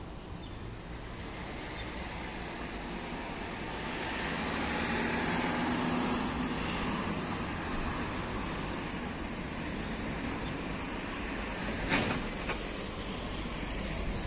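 Street traffic noise, with a vehicle passing that is loudest about five or six seconds in. Two sharp clicks near the end.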